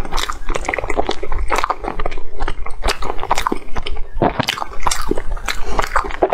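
A person chewing a mouthful of soft cream-filled bread bun, with close, irregular mouth smacks and clicks throughout.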